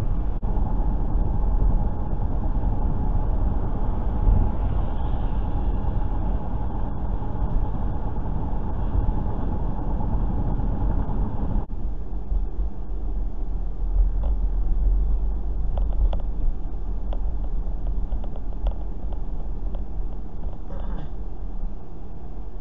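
Steady road and engine noise inside a moving car: a low rumble of tyres and engine at freeway speed. About halfway through it changes abruptly to a quieter, thinner hum of slower city driving.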